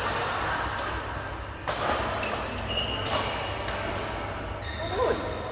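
Badminton rally in a reverberant sports hall: several sharp racket hits on the shuttlecock about a second apart, with short high squeaks of shoes on the court mat and a brief shout near the end.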